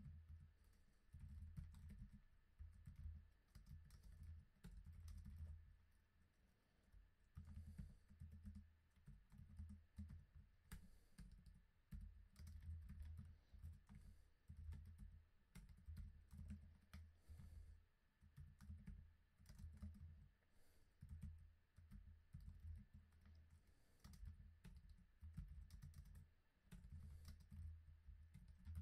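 Faint typing on a computer keyboard in quick runs of keystrokes, each a soft low thud with a light click, broken by a few short pauses.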